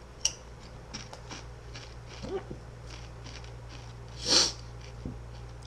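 A man chewing a crunchy chip, with faint crunches through the first few seconds and a short low grunt just after two seconds. About four seconds in comes one sharp, loud burst of breath from his throat.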